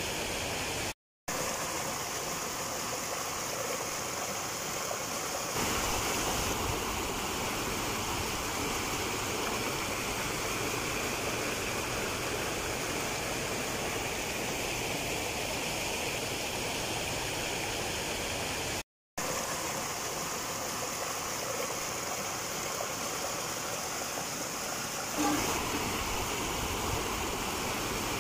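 River water rushing over rocks and rapids, a steady even noise. It cuts out completely for a moment twice.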